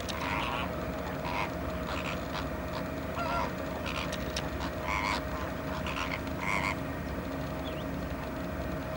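A flock of flamingos calling: repeated short, goose-like honks from many birds, the calls thinning out after about seven seconds, over a steady low background hum.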